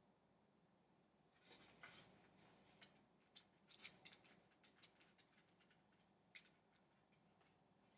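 Faint, scattered small clicks and ticks as a screw fastener is tightened by hand on a wooden easel's adjustable bracket.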